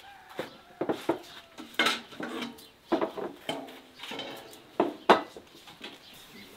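Plates and metal serving trays clattering and clinking as they are set down on a wooden table: a string of sharp knocks with brief ringing, the loudest about five seconds in.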